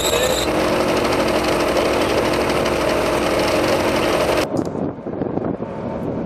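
Boat engine running steadily. About four and a half seconds in the sound changes abruptly to a quieter, rougher rumble with small knocks.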